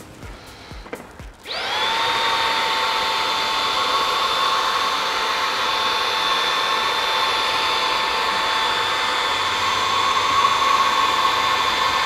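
Xiaomi Dreame V9 cordless vacuum in handheld mode with its crevice tool, switched on about a second and a half in. Its motor spins up with a quick rising whine, then runs steadily: a high whine over a rush of sucked air.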